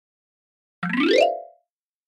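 Intro sound effect: one short whistle-like tone about a second in that slides steadily up in pitch and holds briefly at the top before cutting off. Silence on either side.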